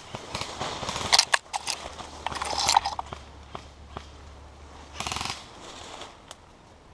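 Footsteps and crackling through dry leaves and brush, with sharp cracks, then a short rapid burst of airsoft gun fire about five seconds in.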